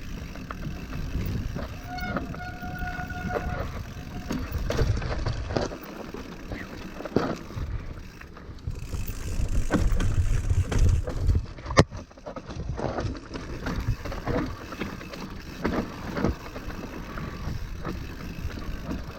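Mountain bike riding down a loose, chunky rocky trail: tyres crunching over rock and gravel, the bike rattling and knocking, with wind rumble on the chin-mounted camera's microphone. A brief squeal about two seconds in, and one sharp knock about twelve seconds in.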